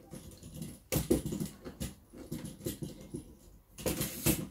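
Irregular plastic clicks and knocks from a lightweight camera tripod being handled, its head turned and legs adjusted, with a sharp click about a second in and a cluster of knocks near the end.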